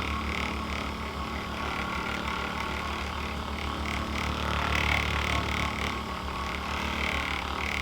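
Electric massage machine running against the back muscles: a steady motor hum with a rapid pulsing.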